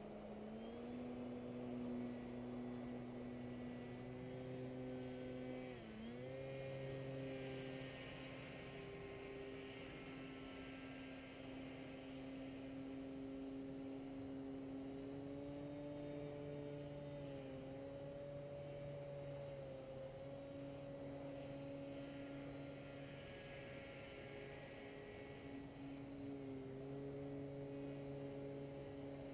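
Distant paramotor engine and propeller droning steadily overhead, its pitch dipping briefly about six seconds in and again a little past halfway.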